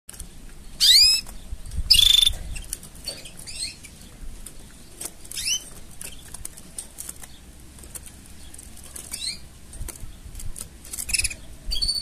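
Canaries calling: short, steeply sweeping chirps at irregular gaps of one to three seconds. The two loudest come about a second and two seconds in.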